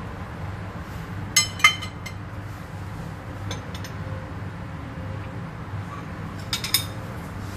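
Cutlery and ceramic plates clinking: two sharp ringing clinks about a second and a half in, a couple of faint ones midway, and a quick cluster near the end, over a steady low hum.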